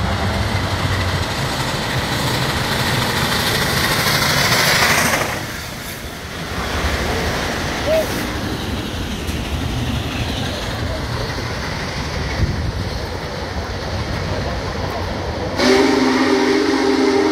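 Union Pacific 4014 steam locomotive passing close beneath an overpass, followed by its passenger cars rolling by: a loud, steady rush of engine and wheel noise that swells for the first few seconds and eases briefly. Near the end a train's multi-tone chord starts suddenly and is held.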